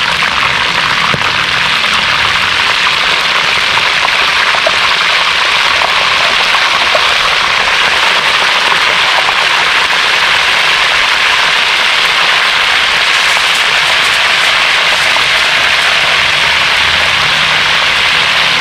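Razor clams deep-frying in a pan of hot oil, giving a loud, steady sizzle with crackling throughout.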